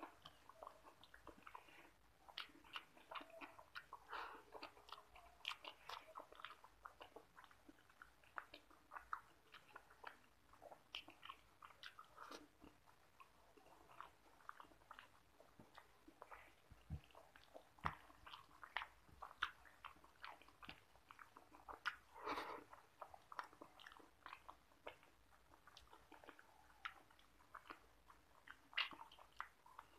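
Close-up, faint eating sounds of a person eating rice and egg curry by hand: many short, wet chewing clicks and lip smacks all through.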